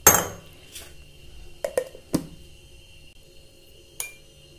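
Clinks and knocks of a steel mixer-grinder jar being handled: one sharp clank at the start, then several lighter knocks.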